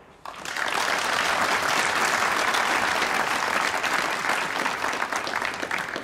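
Arena audience applauding. It starts a fraction of a second in, holds steady, and thins out near the end.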